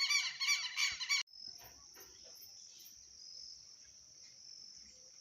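Loud, rapid harsh bird calls, about three a second, that cut off abruptly about a second in, then a quieter, steady high-pitched insect drone.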